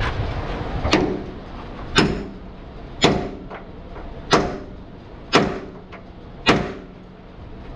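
Sledgehammer striking a steel drift held against a truck chassis rail, six ringing metal-on-metal blows about a second apart, starting about a second in. The blows are knocking out a rivet that has been heated red-hot with a cutting torch.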